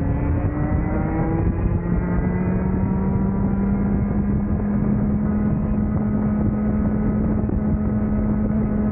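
Rotax 125cc two-stroke kart engine running at high revs under full throttle, its pitch climbing steadily as the kart gathers speed.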